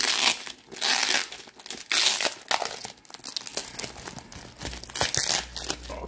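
Plastic wrapping on a cardboard shipping box crinkling and tearing as it is peeled off by hand, in a run of bursts, with a low handling rumble near the end.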